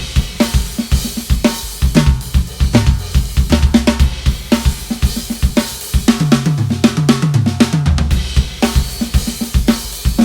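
DW drum kit played in a busy groove of bass drum, snare and cymbals, the drums tuned to the resonant frequency of their shells. About six seconds in, a tom fill rings out in pitches stepping downward.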